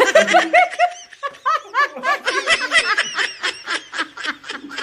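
A person laughing: a long, unbroken run of quick giggles, about six a second, each rising and falling in pitch.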